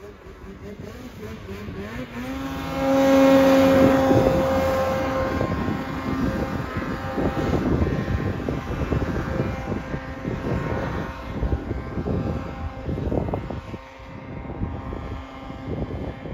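A snowmobile revving hard as it rides past through deep powder. Its engine note rises about two seconds in and is loudest soon after, then the sound grows rougher and fades as the sled moves off near the end.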